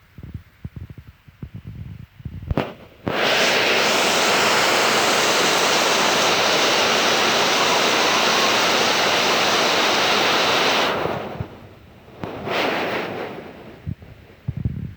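Heavy rain pouring down in a loud, steady rush that starts suddenly about three seconds in and fades near the end, with a shorter burst after it. Scattered low thumps come before it.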